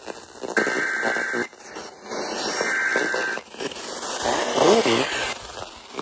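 Emergency Alert System SAME header data bursts from an FM radio's speaker: three buzzy digital bursts of about a second each, separated by short gaps. They are the encoded header that opens a broadcast flash flood warning.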